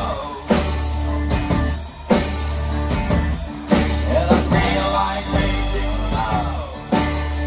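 Live band playing rock music: electric guitar over a steady bass and regular drum beat, with a voice singing in phrases.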